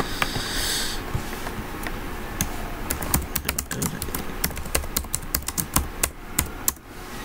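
Typing on a computer keyboard: a quick run of key clicks from about two seconds in until near the end.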